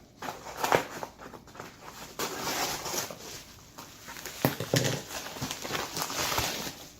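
Packaging being handled and opened: irregular rustling and crinkling, with a few sharp knocks.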